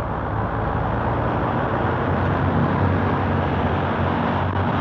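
Sound effect of a train pulling away: a steady engine hum under a continuous rushing noise, growing slightly louder.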